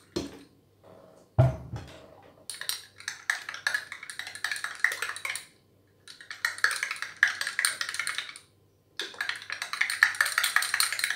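Metal teaspoon stirring dry yeast into warm water in a tulip-shaped tea glass, clinking rapidly against the glass in three spells with short pauses between. A dull knock comes about a second and a half in.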